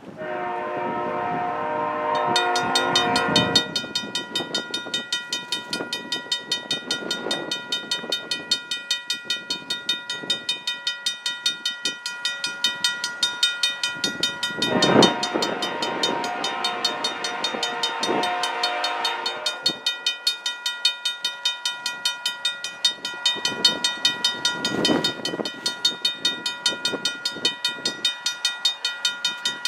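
Approaching CN freight train led by a GE ET44AC locomotive sounding its horn: one long blast at the start, then two shorter blasts about halfway through. From about two seconds in, a bell rings steadily about twice a second over the rumble of the locomotives and cars.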